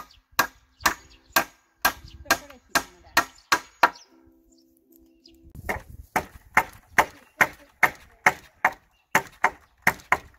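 Hammer driving nails into a scrap-wood coop frame: quick sharp blows, about two to three a second, with a pause of about a second and a half near the middle.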